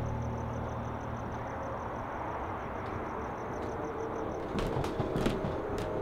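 Outdoor night ambience: a steady low rumble and hiss with a faint, rapid high-pitched pulsing for the first four seconds or so. About four and a half seconds in, footsteps begin as someone walks along the balcony.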